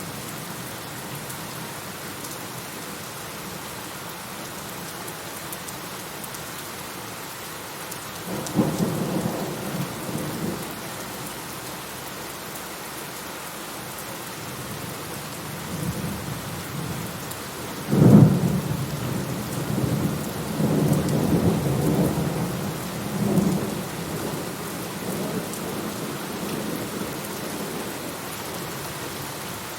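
Steady heavy rain with two rolls of thunder: a rumble about a third of the way in, then a louder sudden clap just past the middle that rolls on for several seconds.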